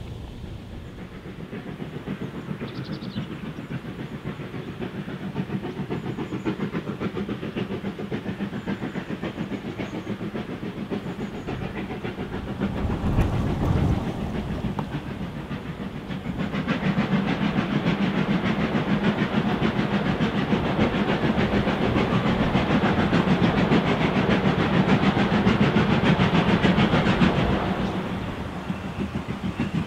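Steam locomotives hauling trains of carriages: a steady stream of exhaust beats with the clatter of wheels on the rails. It starts faint and grows, is loudest for about ten seconds in the second half, then drops away near the end.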